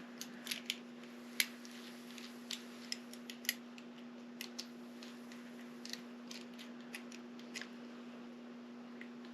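Small metal lock parts clicking and tapping as they are handled and fitted together, in irregular sharp clicks that come thick in the first few seconds and thin out later. A steady low hum runs underneath.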